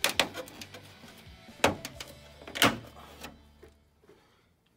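Plastic retaining tabs on a BMW X5 E70 bumper grille clicking and snapping as they are pressed and the grille is pushed out: a few sharp clicks, the loudest near the start and about a second and two seconds later, over faint background music.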